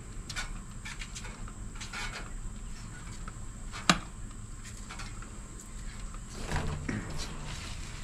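Refrigerant leaking from the capillary tube at a TXV with a faint steady hiss, under scattered handling rustles and clicks from work on the lines. A sharp click about four seconds in is the loudest sound, over a steady low hum.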